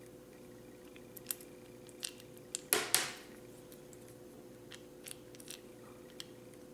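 Small sharp clicks and light scrapes of a TPMS sensor and its valve stem being handled as the screw is fitted, the loudest a close pair about three seconds in, over a faint steady hum.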